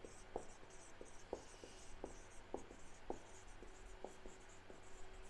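Whiteboard marker writing on a whiteboard: quiet, irregular little taps and scratches as each stroke is drawn.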